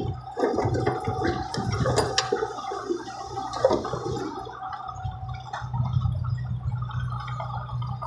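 Dump truck tipping a load of soil and stones: the dirt slides and tumbles out of the raised bed, rumbling with clattering knocks for about the first four seconds. The truck's diesel engine runs underneath, and its steady drone is what is left near the end.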